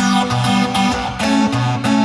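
Yamaha Montage 7 synthesizer playing an FM-X synthesis patch: a rhythmic pattern of quick, sharply struck notes over bass notes and chords that change about every half second.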